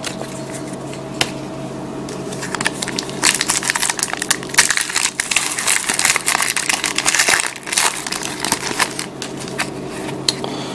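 Foil wrapper of a football trading card pack crinkling and crackling as it is torn open and handled, busiest through the middle of the stretch.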